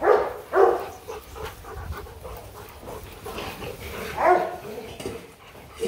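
Rottweilers panting, with louder breaths at the start, just after, and about four seconds in.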